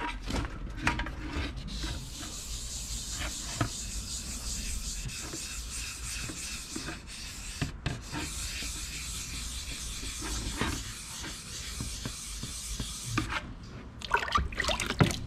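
Wet sandpaper rubbed by hand over filler primer on a steel motorcycle panel, a steady even hiss of strokes that stops briefly once midway: the final fine-sanding pass before paint. Near the end, water sloshes and clicks as the hand goes into the tub of sanding water.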